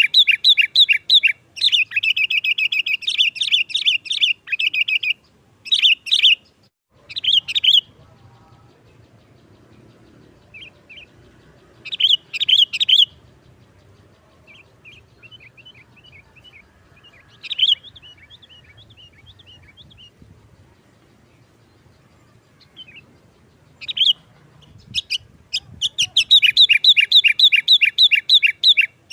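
Sooty-headed bulbul (kutilang) singing in fast, rapidly repeated chattering phrases, in the sharp continuous 'nggaruda' style. The chatter runs dense for the first few seconds, thins to scattered short bursts and softer strings of notes in the middle, and turns dense again near the end.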